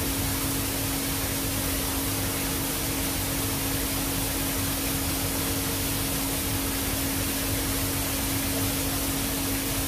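Water-curtain paint spray booth running: water pouring steadily down its two overflow curtains and splashing into the basin, with a steady low electric hum.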